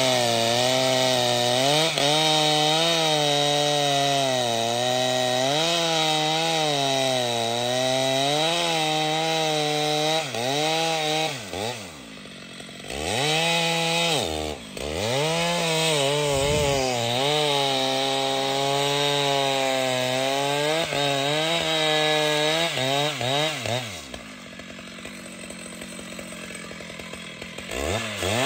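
Large professional chainsaw cutting through trembesi wood under full throttle, its pitch wavering as the chain bogs in the cut and recovers. It drops off briefly about halfway through and again for a few seconds near the end to quieter, lower running, then revs back up.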